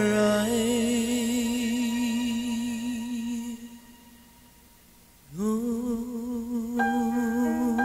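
Christian song recording: a long held note with vibrato fades out about three and a half seconds in. After a short near-silent gap, a new held note glides up and swells in, and bell-like mallet notes begin near the end.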